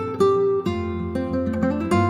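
Background music: an acoustic guitar plucking a run of single notes over held bass notes.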